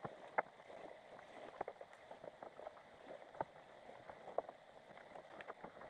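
Underwater ambience heard through a GoPro's waterproof housing on the sea floor: a faint steady water hiss with irregular sharp clicks and ticks scattered through it.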